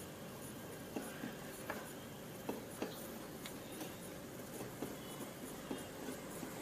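Faint, scattered light taps and scrapes of hands working small wires and soldering paste at a workbench, about a dozen small ticks over a steady low hiss.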